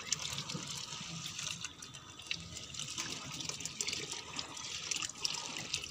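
Water running from a hose into a tub of wheat grains and splashing as the grain is stirred and washed by hand, with small irregular splashes and grain swishing.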